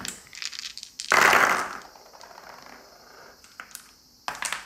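A handful of dice thrown and clattering on a table, with a loud rattle about a second in, then a few separate clicks and a short clatter near the end.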